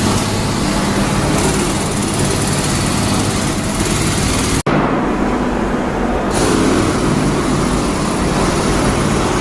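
Engine-driven repair machinery running steadily with a low hum and a loud hiss. The sound breaks off for an instant about four and a half seconds in, then comes back with less hiss for a second or so.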